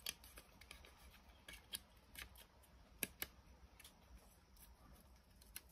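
Faint, scattered clicks and taps of an LED circuit board and its wires being handled and laid into a round plastic light-fixture housing, with one sharper click about three seconds in.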